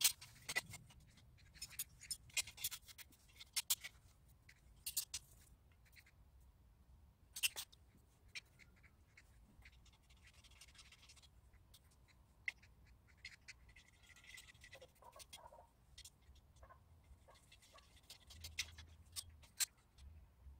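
Scattered light clicks and taps of steel pipe frame parts and fittings being handled and fitted together, with a few short stretches of metal scraping.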